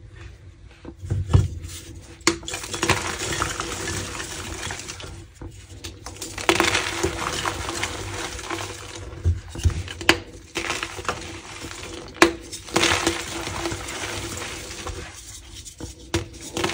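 Slices of gym chalk being crushed and crumbled, crunching in stretches of a few seconds with several sharp cracks in between.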